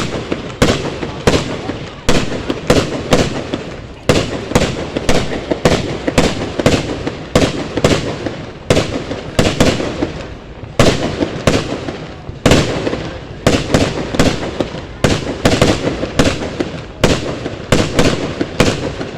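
Fireworks going off in a steady barrage: loud, sharp bangs about two to three a second, overlapping, with rumble between them.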